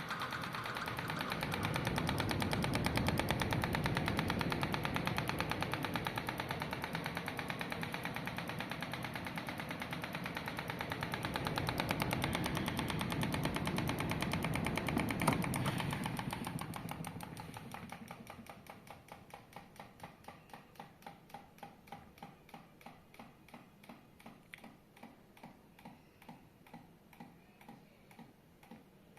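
Electric fan with its blade mounted backwards, clattering in a fast run of clicks. After about sixteen seconds the clatter fades and slows into separate ticks, about two a second.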